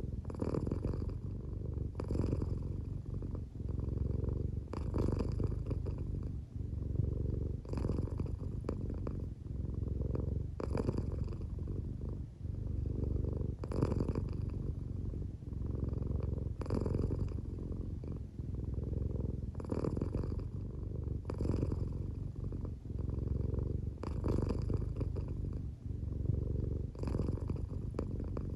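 American Shorthair cat purring steadily at close range, a low continuous rumble that swells with each breath about every two to three seconds. The cat is drowsy and half asleep, and the owner suspects the purr may be partly snoring.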